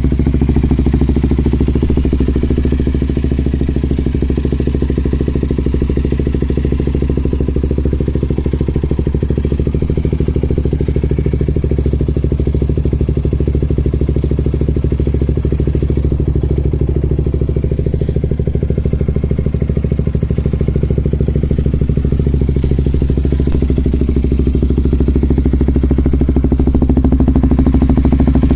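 KTM Duke 200's single-cylinder four-stroke engine idling steadily through an LCI titanium slip-on silencer with its inner baffle removed, on the stock header pipe.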